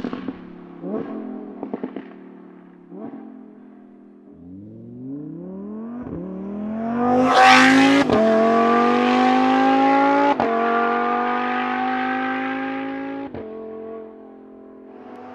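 Novitec-tuned Lamborghini Huracán EVO's V10 at full throttle. First come crackles and pops on the overrun as one pass fades out. Then the engine note sweeps up as the car accelerates past, keeps climbing as it pulls away with two sharp cracks at upshifts near the end, and fades.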